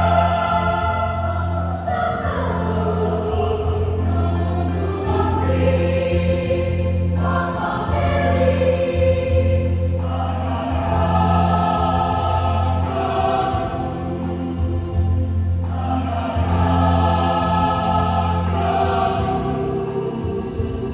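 Youth church choir singing a hymn in Sumbanese in phrases that swell and break every few seconds, over a steady low hum.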